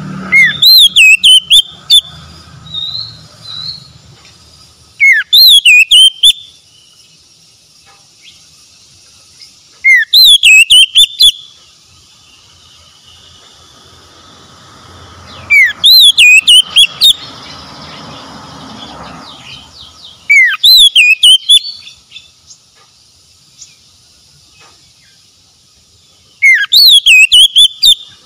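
Oriental magpie-robin singing loud, short song phrases, six times about five seconds apart. Each phrase opens with a rising whistle and runs into a quick, high warble.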